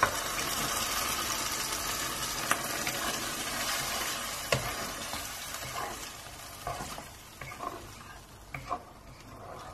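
Water poured into a hot curry in a non-stick wok, which sizzles, the hiss dying away over several seconds as a wooden spatula stirs it through. A few sharp knocks of the spatula against the pan.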